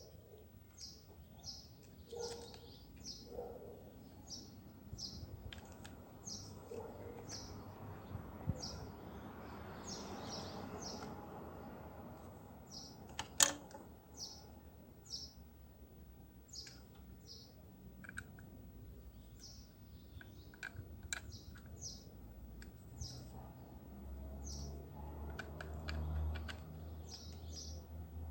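A small bird chirping over and over in short, high, quick notes, with scattered light clicks and taps and one sharp click about halfway through. A low hum comes in near the end.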